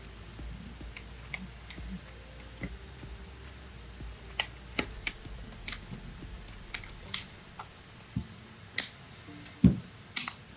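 Plastic back cover of a Samsung Galaxy A02s being pressed onto the phone: a scattered series of sharp clicks and snaps as its clips seat, louder and closer together near the end.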